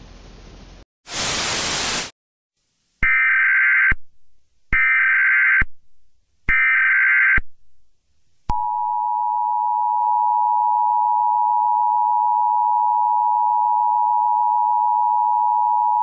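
Emergency Alert System alert tones: a one-second burst of static, then three separate bursts of SAME header data tones, each about a second long. About halfway through, the steady two-tone EAS attention signal begins.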